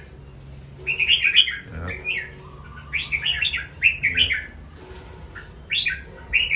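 Young red-whiskered bulbuls in covered cages chirping in short, bright bursts, about one every second.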